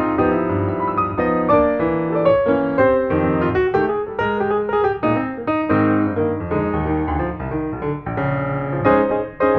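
Background music: a piano-led instrumental tune with quick successive notes over sustained chords.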